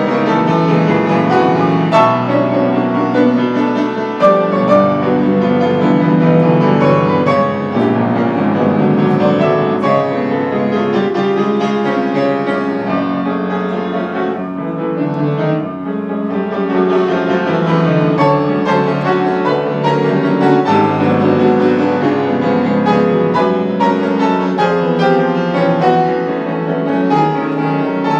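Solo grand piano, a Cunningham, playing a busy classical-style piece with many quick notes sounding without a break.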